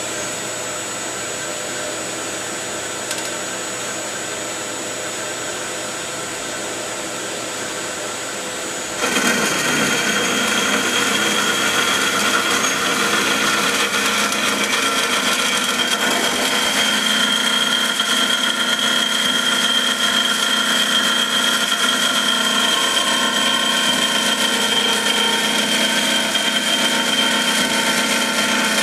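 A JMT HBA330 automatic horizontal metal-cutting band saw with a 3 HP main drive running through an automatic cutting cycle. About nine seconds in the sound gets clearly louder and rougher, with a high steady whine, and then runs on steadily as the blade saws through a square metal tube.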